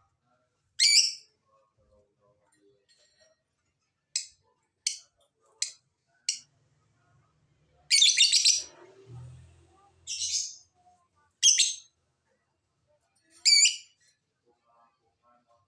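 Lovebird calling in separate, sharp, high-pitched chirps and short shrill calls, about nine in all with silent gaps between them. A soft low thud comes a little after the middle.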